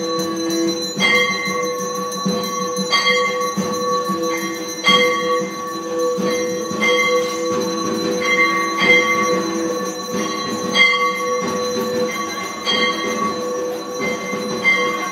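Puja bells and struck bell-metal ringing without pause, several ringing tones held under a sharp strike about every two seconds, with lighter strikes in between.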